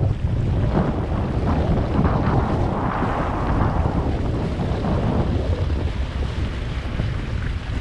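Wind buffeting the microphone aboard an Impulse 26 sailboat under way, over the rush of water along the hull; a louder wash of water swells and fades about three seconds in.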